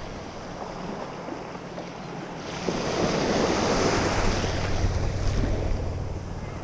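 Small surf washing up a sandy beach, with wind buffeting the microphone; the rush of water swells louder about two and a half seconds in and eases off near the end.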